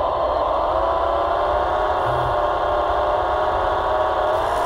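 Hydraulic pump of an RC model timber crane whining steadily as the crane is worked. Its pitch sags a little just after the start and climbs again near the end as the load on the pump changes.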